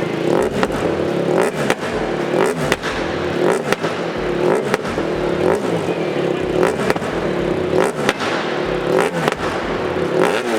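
BMW R1200GS boxer-twin engine revved in repeated short throttle blips, about one a second, through a REMUS 8 exhaust and REMUS headers with the dB killer removed, with sharp pops between the blips.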